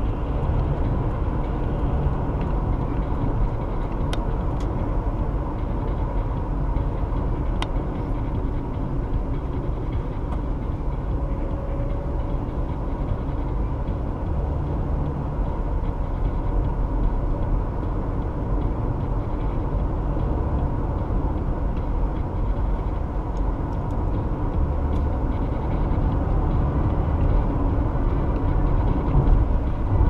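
Steady road noise of a car driving on a highway, heard from inside the car: an even, low rumble of tyres and engine.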